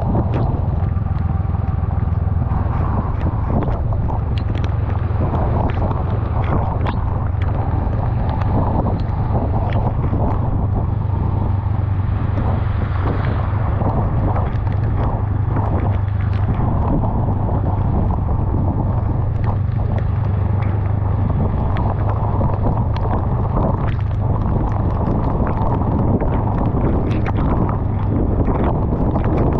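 Honda Rebel 500's parallel-twin engine running steadily at cruising speed, under wind buffeting the microphone and rain spattering against the bike and rider.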